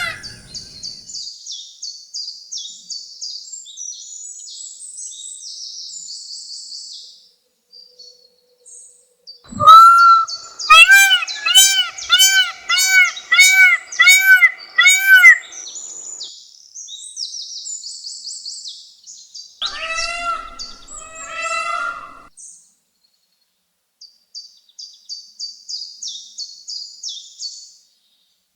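Indian peafowl (blue peacock) calling loudly: a series of about eight repeated honking calls, roughly two a second, starting about ten seconds in, and a shorter run of calls around twenty seconds. A faint, high, fast chirping goes on underneath much of the time.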